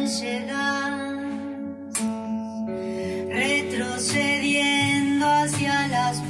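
A woman singing to acoustic guitar accompaniment in a live performance. The voice pauses briefly about two seconds in while the guitar chords ring on, then the singing resumes.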